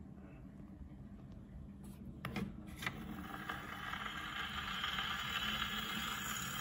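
Acoustic wind-up field phonograph's soundbox needle set down on a spinning 78 rpm shellac record: a few clicks two to three seconds in, then the hiss and crackle of the record's surface noise in the lead-in groove, growing steadily louder.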